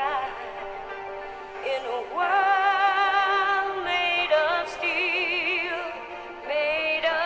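Music: long held melodic notes that waver in pitch, from a singing voice or a synth lead, changing note every second or two.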